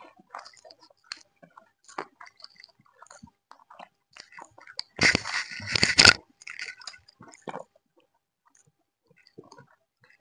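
People eating chicken curry and lemon rice by hand: scattered wet chewing and smacking sounds. About five seconds in there is a louder, harsh noise lasting about a second.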